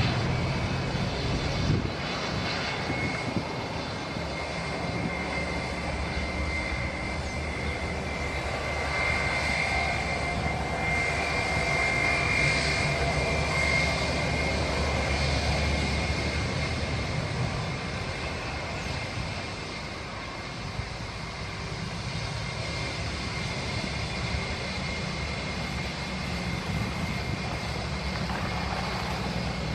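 Airbus A320 jet engines running at low taxi power as the airliner taxis and turns on the runway: a steady high whine over a low rumble, swelling a little about ten to sixteen seconds in.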